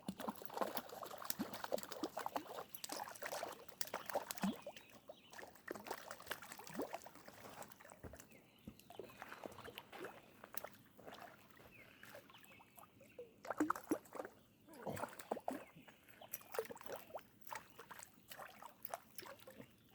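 A hooked trout thrashing and splashing at the water's surface as it is played in on a fishing line, an irregular run of splashes and slaps, loudest about two-thirds of the way through.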